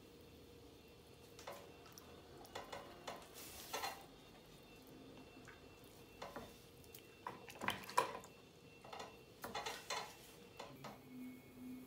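Hands and a tool working wet clay on a spinning potter's wheel: scattered light clicks, taps and wet rubbing, loudest about four and eight seconds in, over a faint steady hum.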